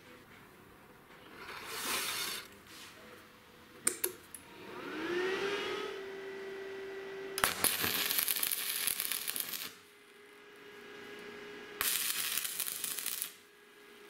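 Stick (arc) welding a steel nut to a plate: the electrode's arc crackles and spits in two bursts of about two seconds each, in the second half. Before them, a motor spins up to a steady hum that keeps running underneath.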